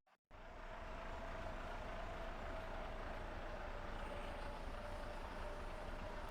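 Faint, steady hum of an idling bus engine.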